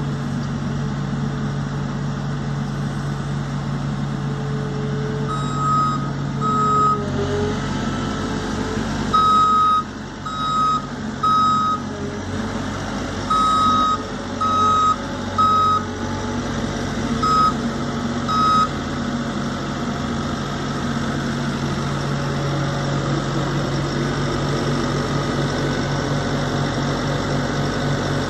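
Diesel engine of a heavy machine running steadily, with its backup alarm sounding a run of about ten short beeps in the middle, while the machine reverses.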